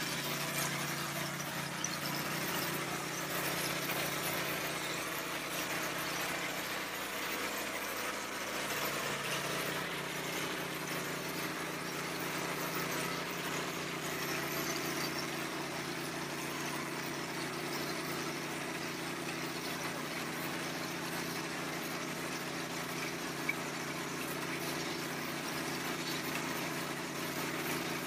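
V Tex 400 stucco spraying rig running steadily while spraying a stucco color coat: a constant machine hum under a continuous hiss of air and material leaving the spray gun.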